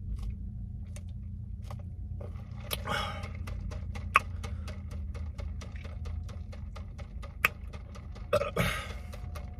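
Close-up mouth and drinking sounds: a sip of soda through a straw and swallowing, with many small sharp clicks, two of them louder about four and seven seconds in.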